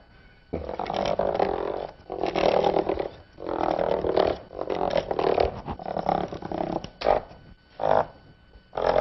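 Chalk chattering rapidly against a blackboard as dashed lines are drawn: the chalk skips along the slate to leave the dashes without the hand moving up and down. It comes as a series of rattling strokes, each about a second long with short gaps between, and a single sharp tap about seven seconds in.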